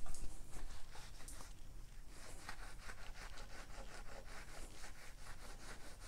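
Cloth rag wiping soapy water along a bare motorcycle handlebar to clean off old grip glue: faint, quick, repeated rubbing strokes, with a few louder knocks near the start.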